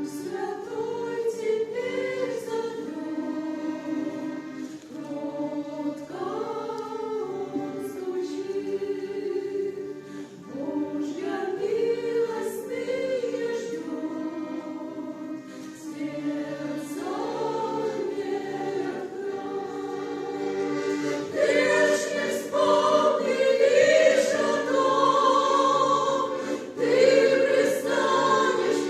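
A choir singing a hymn in sustained chords, phrase after phrase, growing louder in the second half.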